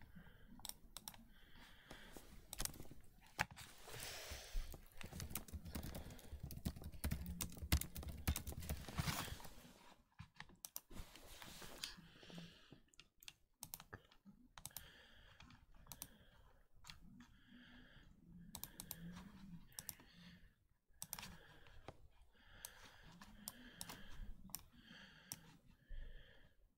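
Computer keyboard being typed on: short runs of quick key clicks, with a few seconds of steady hiss and low rumble in the first half.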